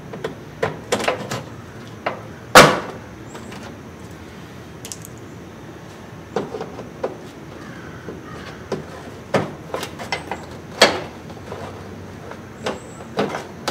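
Plastic push-pin rivets being pried out of a Hummer H2's plastic fender liner with a trim tool: irregular sharp clicks and snaps. The loudest comes about two and a half seconds in, with another strong one near eleven seconds.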